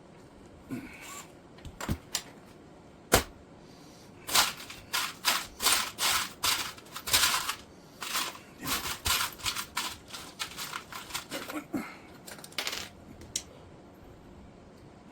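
Hand-tool work on a hard part: a few sharp clicks and knocks, then a long run of short scraping strokes, about two a second, that stops a couple of seconds before the end.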